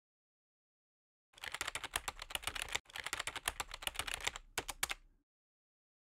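Rapid run of clicks like typing on a keyboard, starting about a second in, with a brief break near the middle and a few last separate clicks before it stops about five seconds in.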